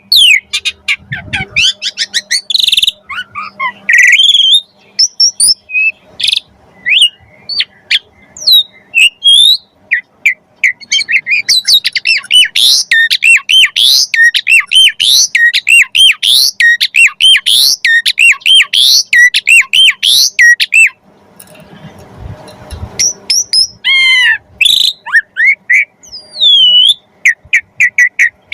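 Asian pied starling (jalak suren) singing: loud, varied whistles, chirps and harsh notes, with a long fast run of repeated rising-and-falling notes in the middle. A brief rustling noise comes about three quarters of the way through.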